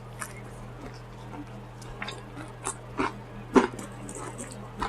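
Chewing and wet lip-smacking over food: a string of short, sharp mouth clicks, the loudest about three and a half seconds in, over a steady low hum.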